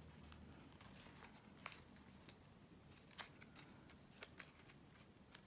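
Faint rustles and a handful of short, sharp clicks of folded paper being handled, as small flaps of an origami model are pressed and tucked in.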